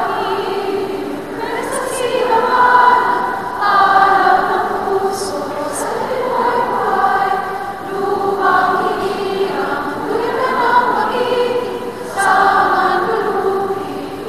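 Choir singing a hymn in long, held phrases.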